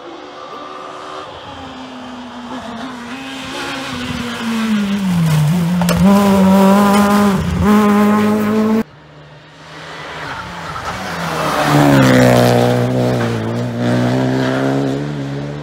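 Two rally cars at stage pace, one after the other. The first approaches with its engine note dropping and rising through gear changes, gets loud with a few sharp pops, and cuts off abruptly about nine seconds in. The second, a Renault Clio rally car, comes closer with its engine rising to a peak, then falls in pitch as it slows and shifts down into a hairpin.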